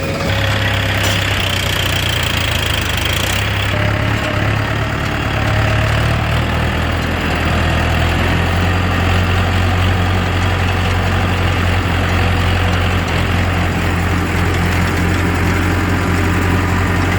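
Diesel engine of a tractor or backhoe loader idling steadily, its note low and even.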